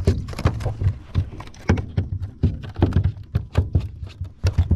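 Irregular knocks and thumps on the aluminium hull of a small tinny, several a second.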